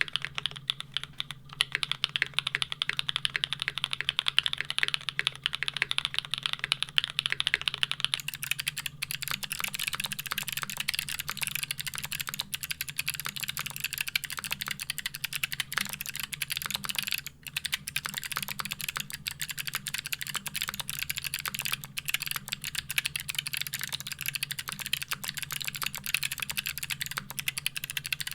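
Fast typing on Geonworks custom mechanical keyboards, a dense run of key clacks: first on the W1-AT, then, about eight seconds in, on the F1-8X V2, whose clacks sound brighter.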